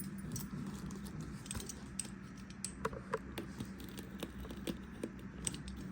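Scattered light clicks and taps, irregular and a few a second, of small objects being handled, over a faint steady low hum.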